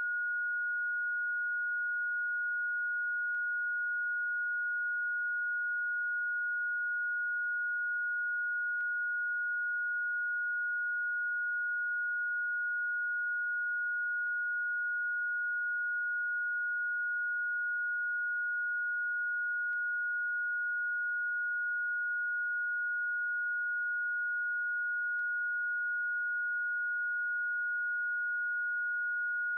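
Electronically generated pure sine tone, one of the Rife frequencies, held at a single steady high pitch.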